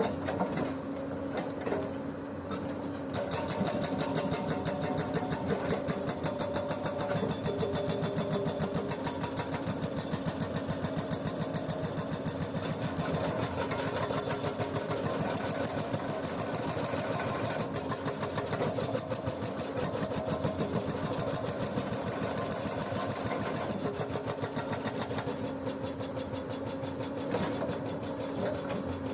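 Hyundai 210LC-7 excavator's hydraulic breaker hammering in a fast, even stream of blows over the running diesel engine. The hammering starts about three seconds in and stops a few seconds before the end, leaving the engine running on its own.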